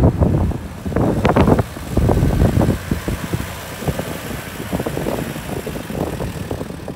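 A Nissan Terrano 4x4 driving slowly past on a gravel track, its engine running and its tyres crunching over stones, getting quieter toward the end as it pulls away.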